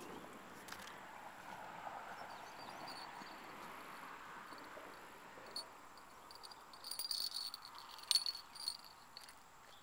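Steady insect chorus, with a small bell clipped on a fishing rod tip jingling in short bursts from about seven seconds in, along with a couple of sharp clicks: the bell is shaken by a fish tugging at the baited line.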